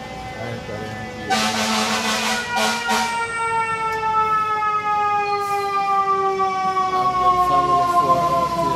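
Fire truck siren wailing, its pitch falling slowly throughout. A loud rush of noise comes in about a second in and lasts a couple of seconds.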